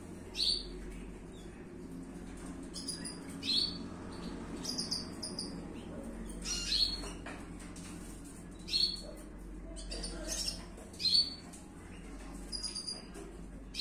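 European goldfinch giving short, high chirping calls, one every two or three seconds, with quicker clusters of softer twittering notes between them.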